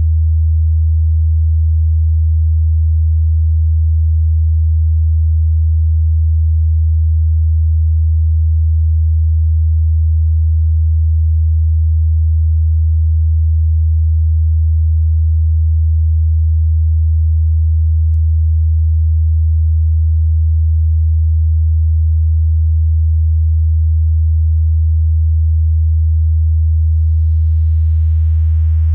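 Steady, loud, low pure sine tone of about 80 Hz, computer-synthesized from a circle's perimeter. Near the end a faint, buzzier layer of higher overtones creeps in beneath it.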